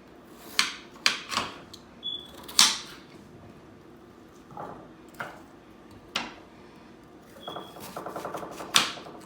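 Kitchen knife chopping vegetables on a cutting board: irregular single chops, then a quick run of small rapid taps near the end, finished by one harder chop.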